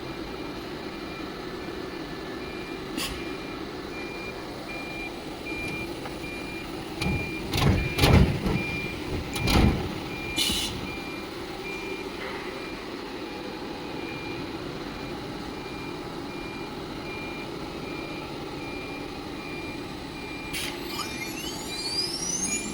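ATC CNC router running its machining program: a steady hum with an evenly spaced beep throughout, a few loud knocks partway through, and a rising whine near the end.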